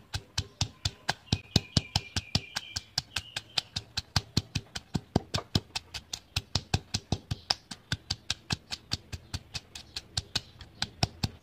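Stone pestle pounding garlic cloves and bird's eye chilies in a granite mortar: a steady run of sharp knocks, about five a second.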